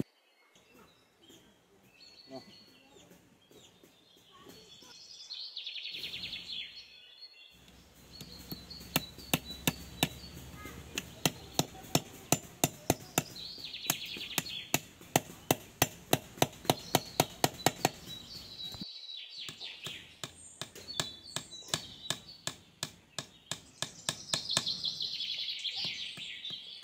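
Hammering: a fast run of sharp blows, about two to three a second, starting about eight seconds in and going on to near the end, with a short break a little past halfway.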